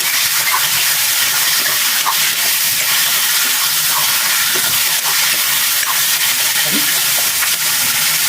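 Chicken pieces sizzling steadily as they fry in hot oil with onions in a pan, an even hiss with a few faint clicks.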